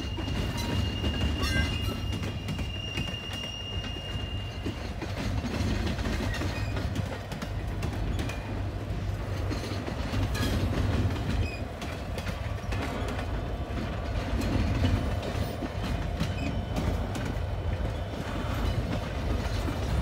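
Canadian Pacific double-stack container well cars rolling past, with a steady rumble of wheels on rail and irregular clicks and clatter at the rail joints. A thin, high, steady squeal sounds for the first five seconds or so.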